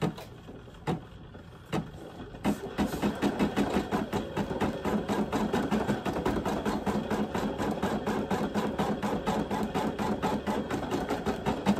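Brother PE800 embroidery machine. After a couple of clicks, it starts stitching about two and a half seconds in, with a fast, even rhythm of needle strokes. It is resuming the design after a thread break, a few stitches back from where the thread came out.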